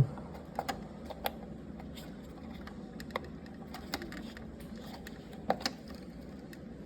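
Scattered light clicks and taps of plastic parts being handled as the display is fitted into its slot on a 3D printer, about half a dozen spread out, the loudest two close together near the end.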